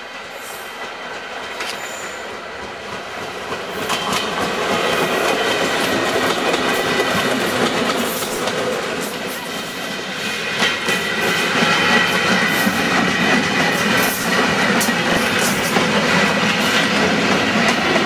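Electric multiple-unit train approaching and passing close, its wheels clacking over the rail joints with a thin, steady high squeal. It grows louder over the first few seconds, then stays loud.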